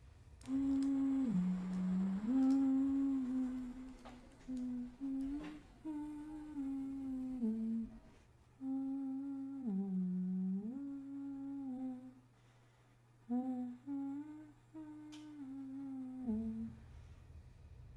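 A woman humming a slow melody in short phrases, the tune rising and dipping, with brief pauses between phrases.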